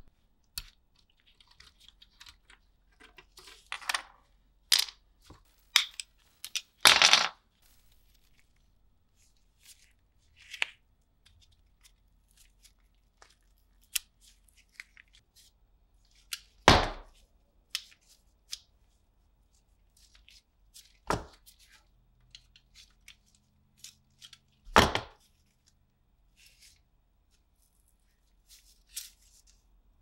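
Hand work at a bench: scattered small clicks, taps and short scrapes, with a handful of louder sharp knocks spread through.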